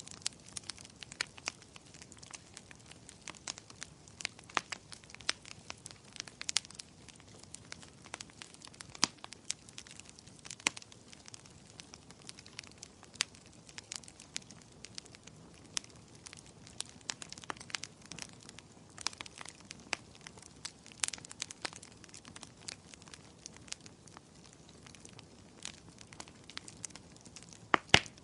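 Burning firewood crackling and popping: a steady low hiss of flames with frequent irregular sharp snaps, a couple of louder pops near the end.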